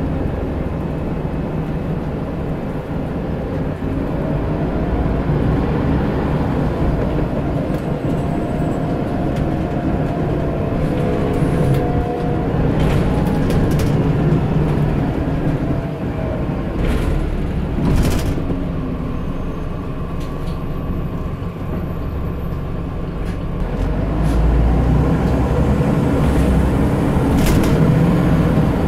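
Scania N94UD double-decker bus heard from inside the lower deck: the diesel engine and automatic gearbox pulling under kickdown, with a whine that climbs in pitch as the bus accelerates. A few rattles from the body come in the middle, and the engine grows louder on another pull near the end.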